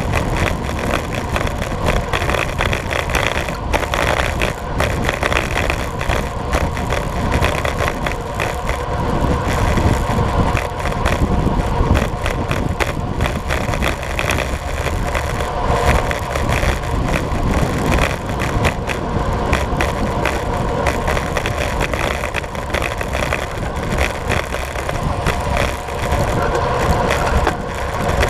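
Steady rush of wind over the bike-mounted camera's microphone, mixed with road-bike tyres rolling on asphalt at around 50–58 km/h.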